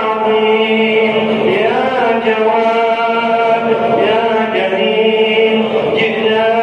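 Wordless chanted vocal drone: a low note held steady throughout, with voices gliding slowly up and down above it.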